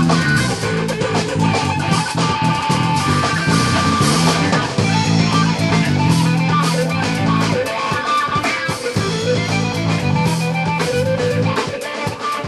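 Rock music played by a band: guitar over bass and drums, with a steady beat.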